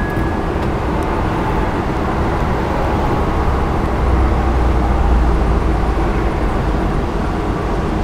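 Steady outdoor traffic noise, with a vehicle passing about four seconds in, its low rumble swelling and then fading.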